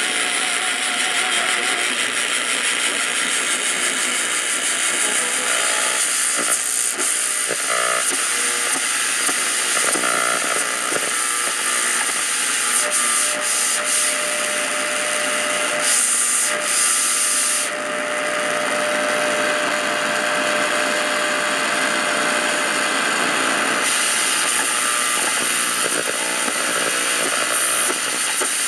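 RCA AR-77 tube shortwave receiver's loudspeaker giving out steady static and hiss between stations, with faint whistling tones drifting in and out. One steady tone holds for several seconds past the middle.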